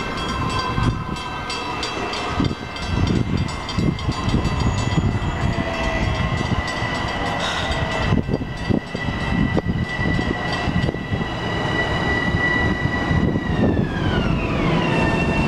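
LIRR M7 electric multiple-unit train pulling into the station, its wheels rumbling and clicking over the rails under a steady high whine from the traction motors. Near the end the whine falls in pitch as the train brakes to a stop.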